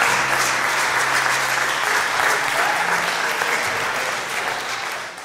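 Congregation applauding the newly presented bride and groom, a dense steady clapping that fades out near the end.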